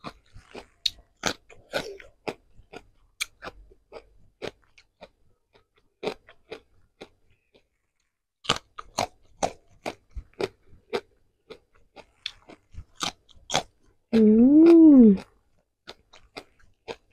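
Close-miked eating: crisp crunching bites and wet chewing of food, in irregular clusters. About 14 seconds in, the eater gives one loud hum, about a second long, its pitch rising then falling.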